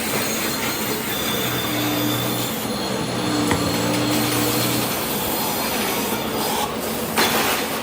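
Steady workshop machinery noise, dense and unbroken, with a low machine hum that comes in about a second and a half in and fades out near five seconds.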